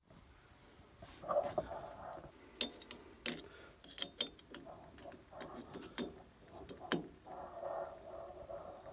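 Metal parts being handled: a string of light clinks and knocks, several ringing briefly, with some rustling in between.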